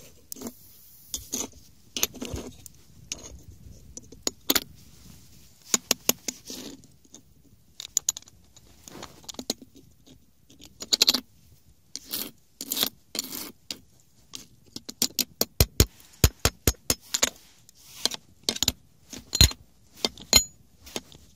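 Irregular metallic clicks, taps and scrapes of small cast lead coins being worked at, stuck fast in improvised molds made from speaker parts. The taps come in quick runs toward the end.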